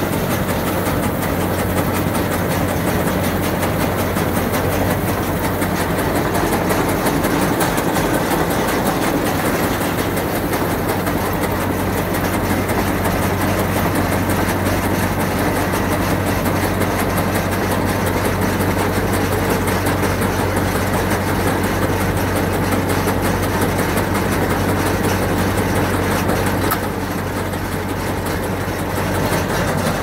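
Maschio Entry 120 round baler running, driven off a tractor's PTO, as its pickup gathers hay into the chamber, over the steady sound of the tractor engine. The sound drops a little about 27 seconds in.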